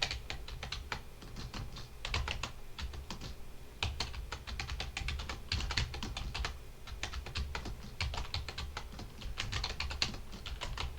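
Rapid typing on a computer keyboard: runs of quick key clicks in bursts, broken by brief pauses, with a light low thud under the strokes.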